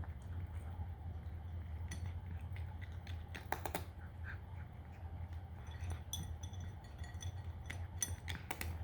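A cat crunching dry kibble: scattered crisp clicks and crunches, with a cluster about halfway through and more near the end, over a steady low hum.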